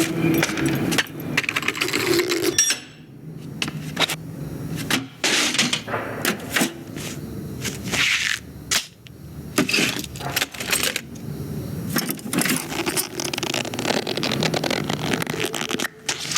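Animated-film sound effects: a busy run of clicks, clanks and clinks of small hard objects, with a brief lull about three seconds in.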